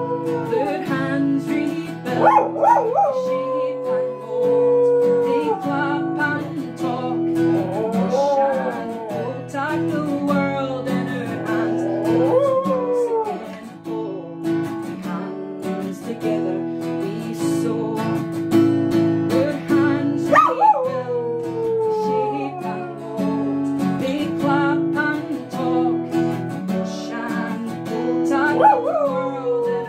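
Acoustic guitar strummed steadily while a dog howls along, several long howls that slide down in pitch.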